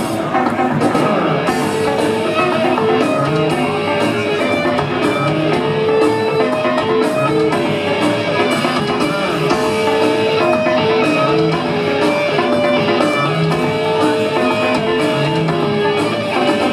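Live rock band playing: electric bass and drum kit in a loud, repeating riff, heard from the audience.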